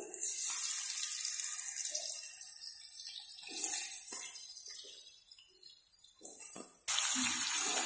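Cubed potatoes sizzling in hot oil in a kadhai, with a few soft thuds partway through as more pieces go into the oil. The sizzle jumps louder near the end.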